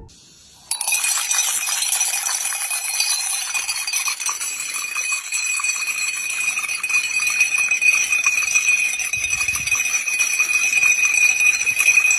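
A long row of drinking glasses partly filled with liquid clinking and ringing in a fast, continuous run, with a steady high ringing tone over the clicks. It starts about a second in and cuts off abruptly.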